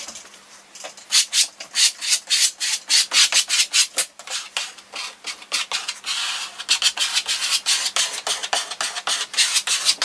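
A hand tool scraping wood in quick, even back-and-forth strokes, with a brief lull about four seconds in.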